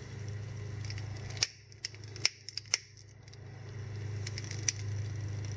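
A hand-held lighter clicked repeatedly to relight an alcohol stove burner: a quick run of sharp clicks about a second and a half in, and a few fainter clicks near the end.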